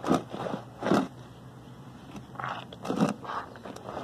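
Hand scrubbing in a plastic basin of soapy water: wet squishing and sloshing of suds in uneven bursts, loudest just after the start, about a second in, and around three seconds in.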